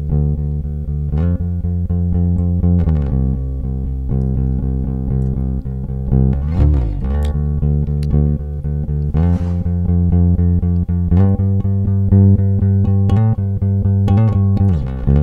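A solo electric bass guitar line played back from a recording, unprocessed. It is played with a wide dynamic range: quieter notes alternate with harder-plucked notes that have strong attacks, and a couple of notes slide in pitch.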